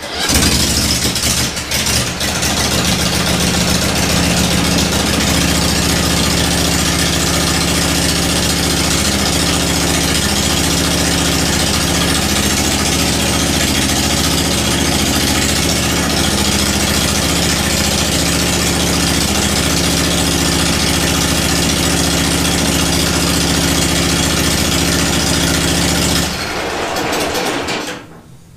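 Briggs & Stratton Vanguard V-twin engine with no muffler, catching right away and running loud and steady on its open exhaust pipes. About 26 seconds in it drops lower, and it cuts off just before the end.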